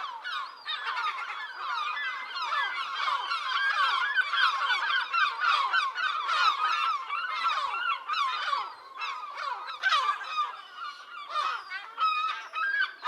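A flock of birds calling all at once: a dense, unbroken chorus of many short overlapping calls.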